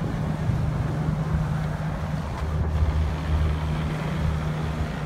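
Large motor yacht's engines running with a steady low hum as it manoeuvres, with water churning beside the hull.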